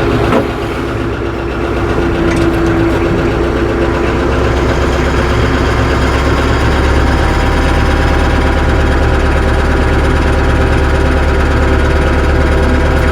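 Tractor engine running as the tractor creeps forward, a steady drone with a sharp knock just after the start. Its low rumble grows louder about halfway through.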